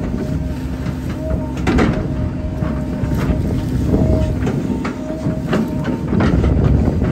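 Hydraulic excavator running, its diesel engine giving a steady low rumble, with frequent short clanks and a brief whine that recurs every second or so as the machine works.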